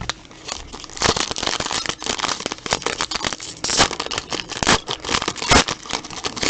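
Plastic card wrapping crinkling as a trading card pack is opened and the cards handled: a dense run of crackles with several louder swells.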